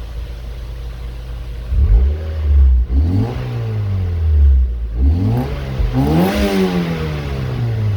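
Mazda Miata NC's four-cylinder engine, still cold, running through a Yonaka aftermarket exhaust. It idles, then is revved twice from about two seconds in, the pitch climbing and falling away each time.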